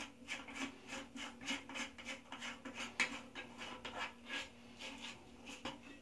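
A plastic nut being turned by hand onto the threaded plastic shank of a new Flowmaster toilet flush valve through the bottom of the tank: a quick run of short rubbing scrapes, about three a second.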